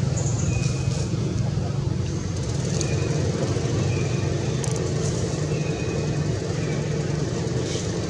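A steady low engine drone, with faint, short, high chirps every second or so over it.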